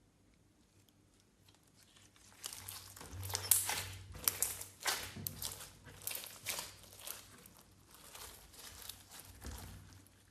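Clear slime being squished and kneaded by hand, giving an irregular run of wet crackles and pops that starts a couple of seconds in, is loudest soon after, and thins out toward the end.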